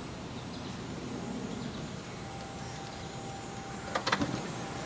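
Steady outdoor background noise, with a short cluster of sharp knocks about four seconds in.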